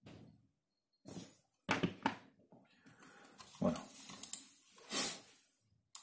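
Handling noises: a series of knocks and rustles as a smartphone is set down into a small stand on a wooden desk. The loudest come about two seconds in and again near five seconds.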